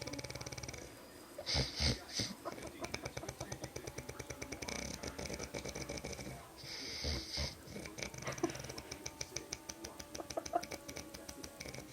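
A man snoring heavily: a fast, chainsaw-like rattle, broken twice, about five seconds apart, by a louder, harsher breath.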